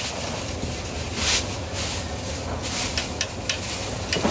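Food-stall work sounds over a steady low hum: a short scraping hiss about a second in and a few light clicks later on.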